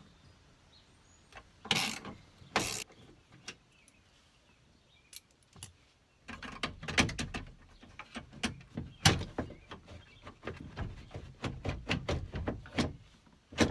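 Hand tool working the Torx screws out of a van's sliding-door latch assembly: two short scraping knocks early, then from about halfway a long run of quick, irregular metallic clicks and rattles.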